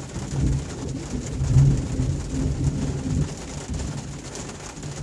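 A long, low rumble of thunder, heard from inside a car, swelling to its loudest about a second and a half in and dying away after about three seconds.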